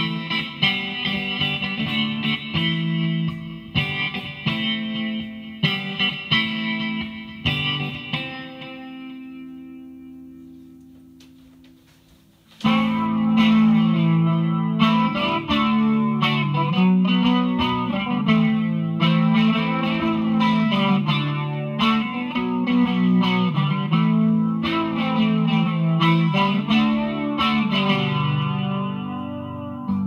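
Electric guitar played through a Behringer V-AMP PRO amp-modeling processor on a clean preset: picked notes and chords, the last one left to ring and fade over several seconds. About twelve and a half seconds in, playing starts again, louder and denser, on the next preset.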